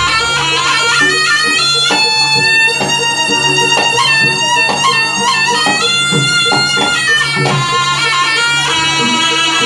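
Jaranan gamelan music: a reedy slompret shawm plays a sliding, ornamented melody over a repeating pattern of struck pitched gongs and a steady low drone.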